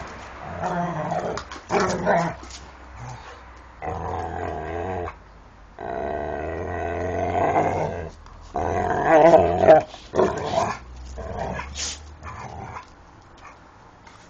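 Two dogs, a liver-and-white spaniel and a brown dog, play-fighting and growling in a string of wavering bursts of a second or two each, with a few short sharp yelps between them; the loudest growls come about nine seconds in.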